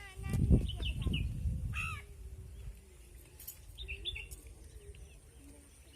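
Birds chirping and calling in short, scattered calls, over a low rumble in the first two seconds.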